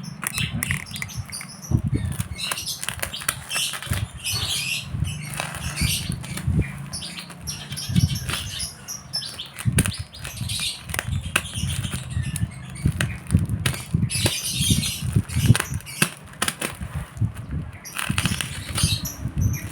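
Phone-case packaging being handled and opened: rustling and crinkling of plastic, with many small clicks and knocks throughout.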